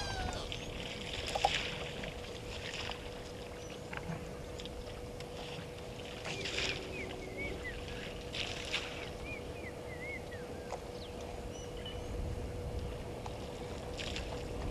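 Outdoor waterhole ambience: wind rumbling on the microphone, with a faint steady hum and several short chirping bird calls in the middle.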